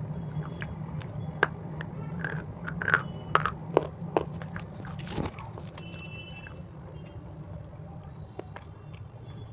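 Close-miked crunching and chewing of a crisp snack: a run of sharp crunches in the first half, then softer, sparser chewing. A steady low hum runs underneath.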